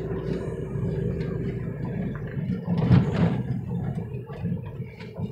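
Car cabin noise while driving: a steady low rumble of engine and road, with a brief louder swell about three seconds in, after which the deep rumble eases off.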